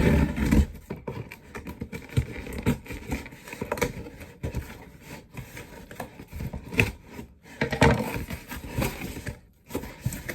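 A shipping package being handled and opened by hand: irregular scraping and rustling, with louder knocks near the start and about eight seconds in.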